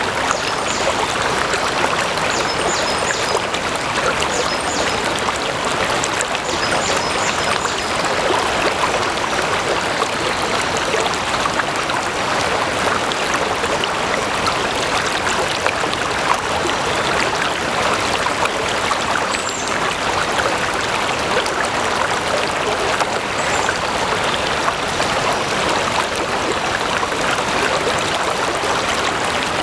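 Water flowing steadily, an even, continuous stream sound.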